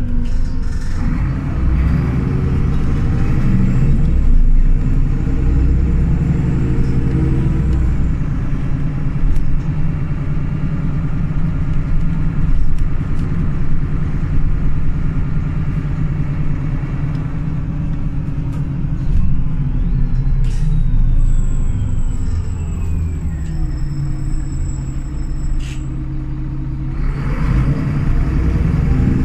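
Solaris Urbino 18 articulated city bus under way, its diesel engine driving through a Voith automatic gearbox, heard from on board. The engine note rises as the bus pulls away, holds steady while cruising, falls away as it slows about two-thirds of the way through, then rises again near the end as it accelerates.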